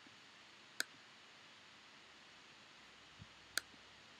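Two sharp computer mouse clicks about three seconds apart, over a faint steady hiss.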